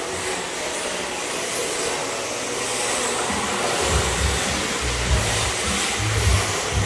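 Electric RC drift cars running on a smooth indoor track: a steady hiss of hard tyres sliding on the polished floor. Irregular low thumps join in from about four seconds in.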